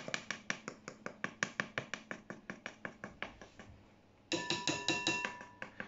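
Metal mesh flour sieve shaken against the rim of a glass mixing bowl: a quick, even run of light clinks, about six a second, that fades out. A little past four seconds, music comes in suddenly.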